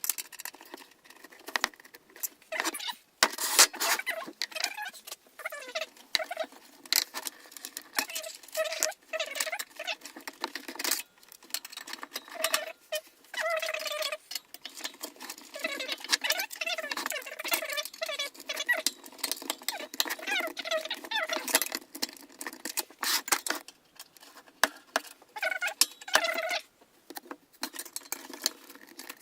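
Computer case parts being worked by hand: many irregular clicks, rattles and scrapes of metal and plastic as screws are undone and the case's fan tray is worked loose.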